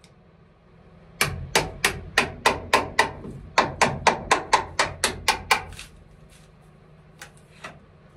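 A hammer striking the end of a screwdriver held against the wooden ceiling batten, chiselling part of it away: a quick run of about seventeen sharp blows, roughly three a second with a short pause partway, then a few faint taps.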